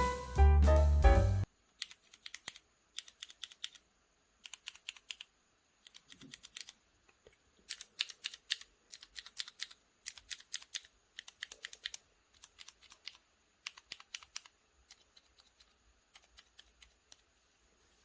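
Intro music that cuts off about a second and a half in, followed by typing on a mechanical keyboard with Akko CS Silver linear switches and PBT keycaps: bursts of quick keystrokes with short pauses between them.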